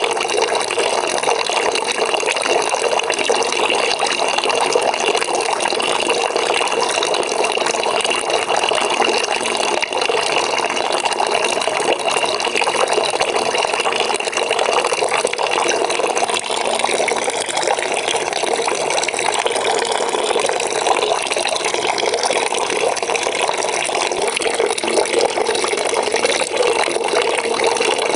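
Water running into a bucket as it fills, a steady, unbroken splashing.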